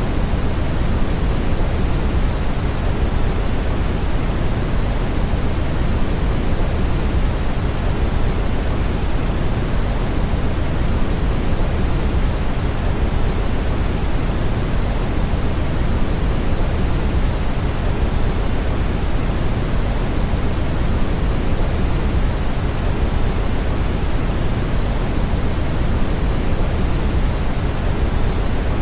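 Steady brown noise: an even, unchanging rush of noise weighted toward the low end, with no other sounds.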